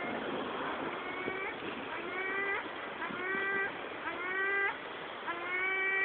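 Gull calling over and over, five drawn-out calls about a second apart, each rising in pitch at the end.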